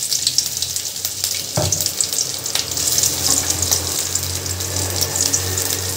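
Crushed ginger and garlic sizzling in hot oil: a steady frying hiss full of small crackles. A low hum runs beneath from about a second and a half in.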